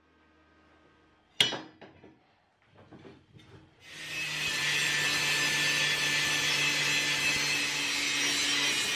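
A sharp metallic clank about a second and a half in, then a few lighter knocks of steel being handled. About four seconds in a handheld angle grinder starts and runs steadily, grinding down a weld on square steel tubing.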